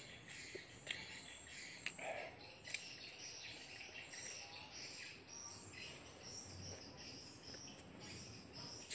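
Insects chirring steadily, with scattered short clicks and smacks of someone chewing food close by.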